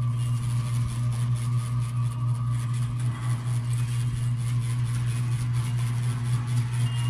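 Steady low hum of a running electric fan motor, with faint small clicks from a hand screwdriver turning screws.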